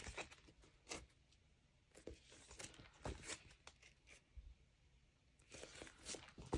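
Near silence with a few faint, scattered rustles and taps: cards or a photo portfolio being handled.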